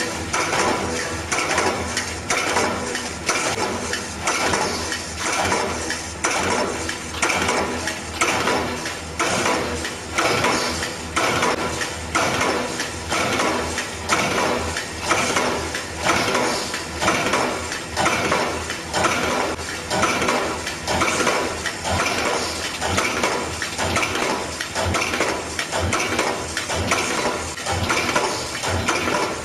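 Aluminium foil container machine running continuously, its press stamping out containers in a steady rhythm of a little over one stroke a second.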